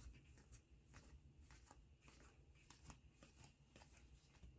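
Faint, scattered soft clicks and rustles of trading cards being handled and slid past one another, otherwise near silence.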